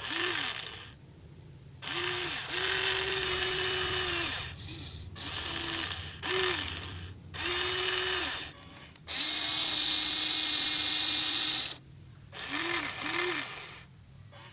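Small electric motors and plastic gearboxes of a Huina 1593 RC excavator whining in repeated bursts of a fraction of a second to a few seconds as its functions are driven, each whine rising as the motor spins up and falling as it stops, over a gritty gear rattle.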